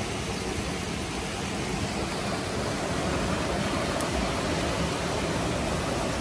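Mountain river water rushing steadily over a low rock ledge into a pool, growing a little louder about halfway through.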